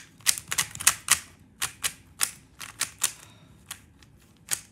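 MoYu RS3M 2020 magnetic 3x3 speedcube being turned by hand: quick, irregular plastic clicks of its layers turning, closely spaced for the first three seconds, then sparser. The cube is new and fully lubed, and turns very smooth.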